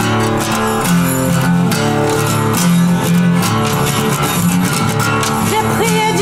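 Acoustic guitar playing the repeating intro figure of a slow dark-folk song. A woman's singing voice comes in near the end.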